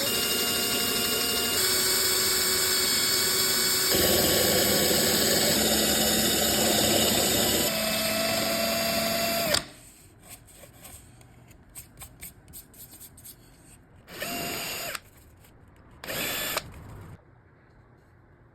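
Power drill boring holes through a wooden drum shell: a steady whine whose pitch shifts several times, cutting off suddenly about halfway through. After a few faint clicks, the drill runs again in two short bursts near the end.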